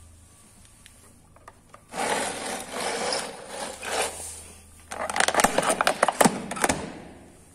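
Crushed, nail-pierced plastic soda bottle crinkling and crackling as it is handled and pulled off a bed of nails. It comes in two spells: one about two seconds in, and a louder one about five seconds in, full of sharp crackles.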